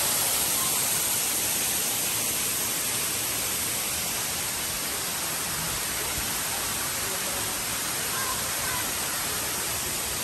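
Waterfall: falling water making a steady, even hiss that grows slightly fainter over the first few seconds.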